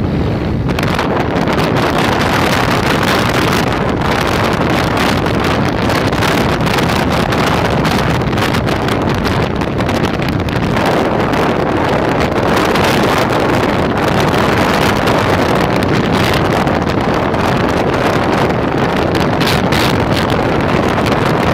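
Steady wind rushing over the microphone of a phone filmed from a vehicle moving at highway speed, with road and engine noise mixed in underneath.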